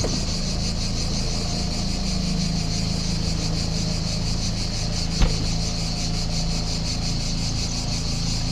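Chorus of cicadas buzzing steadily and densely in a high, evenly pulsing drone, over a low steady hum. Two short sharp knocks stand out, one at the start and one about five seconds in.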